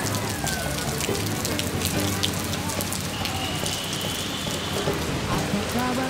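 Steady rain falling on wet pavement and puddles, an even hiss with many individual drops striking.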